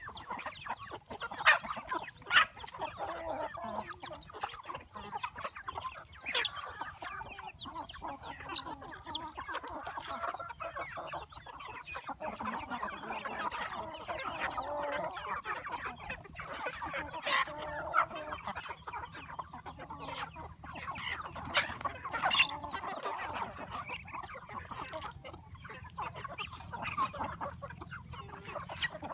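A flock of chickens clucking and chirping continuously, with scattered sharp ticks.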